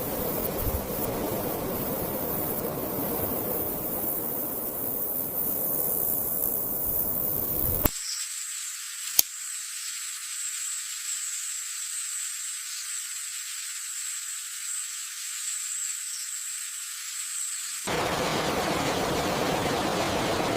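Layered rainforest ambience: a steady rushing hiss. About eight seconds in the deep part cuts out, leaving a thin high hiss with a steady high-pitched whine and a sharp click a second later. The full hiss comes back abruptly near the end.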